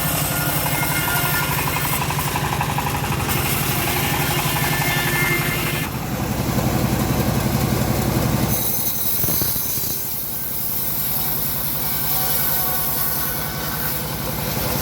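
Engine of a homemade bandsaw sawmill running steadily, its sound getting louder about six seconds in and easing back about eight and a half seconds in.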